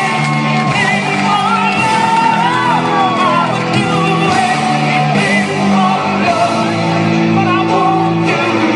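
Loud recorded music with a singing voice, played back over a PA speaker, with shouts and whoops over it.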